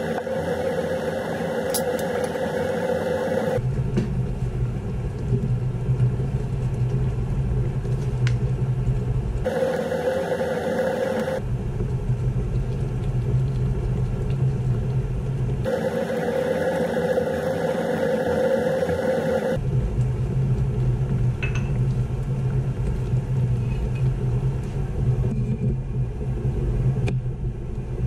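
Steady low rumble and whir of kitchen machinery noise while a pan cooks on an induction hob. It switches abruptly several times between a deeper rumble and a higher hum, with a few faint clicks of utensils.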